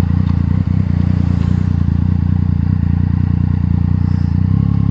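Yamaha MT-09 motorcycle's three-cylinder engine running steadily through an Akrapovič exhaust, its note shifting slightly near the end.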